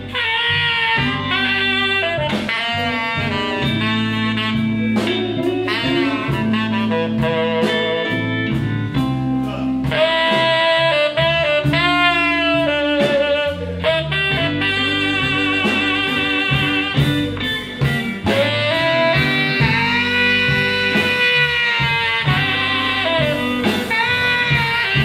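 Live blues band: a saxophone leads a melody with vibrato over electric guitar, bass guitar and drum kit.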